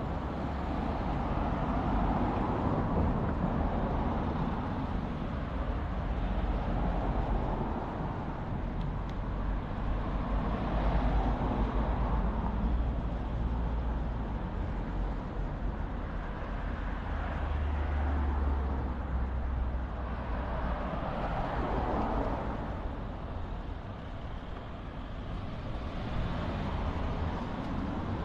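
Street traffic: cars passing one after another, each swelling and fading, over a steady low rumble.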